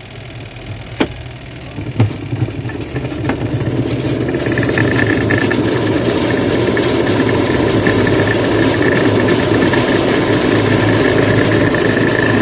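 Top-load washing machine running on test: a low motor hum with a few sharp clicks, then the running noise builds over about two seconds and holds steady with a thin whine.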